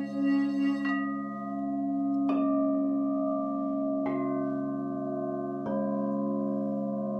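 Singing bowls played: a pink frosted crystal singing bowl sung with a wand around its rim, its steady tone pulsing until about a second in. Then bowls are struck four times, about every one and a half seconds, each strike adding a new ringing tone over the ones still sounding.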